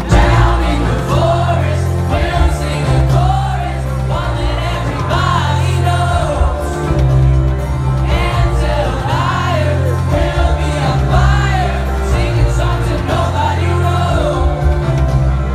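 Live band music filmed from the audience: a drum kit and a heavy, steady bass line under sung vocals.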